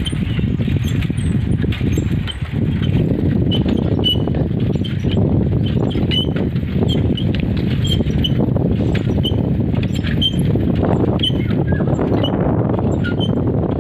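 Steady wind buffeting the microphone while moving along the road, with short high bird chirps scattered throughout.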